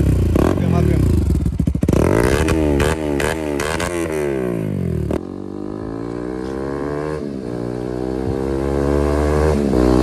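Bajaj Pulsar NS200's single-cylinder engine through an aftermarket Akrapovic exhaust, revved repeatedly at a standstill, the pitch sweeping up and down with each blip of the throttle. After an abrupt cut about five seconds in, it runs steadily under way, its note rising and getting louder near the end as the bike comes closer.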